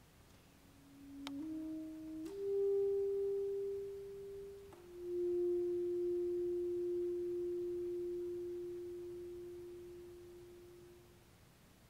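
Yamaha alto saxophone played very softly with an almost pure tone: three notes stepping upward, then a long held note a little lower that dies away to nothing. Faint clicks are heard at the note changes.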